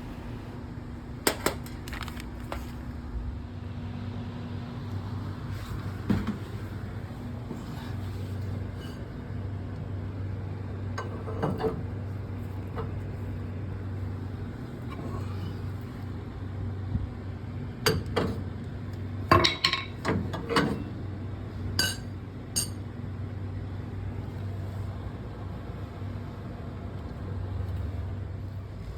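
Scattered clinks and knocks of metal parts and tools being handled and set down, a cluster of them about two-thirds of the way through, over a steady low hum.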